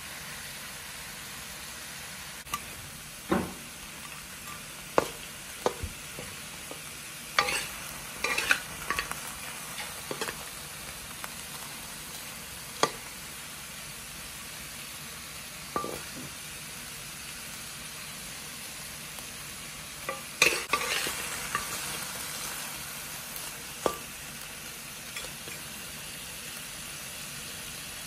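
Meat and sliced ginger sizzling steadily in a wok, with a metal spatula scraping and knocking against the pan now and then as the food is turned. The stirring comes in two busier spells, about a quarter of the way in and again past the middle, with single clicks in between.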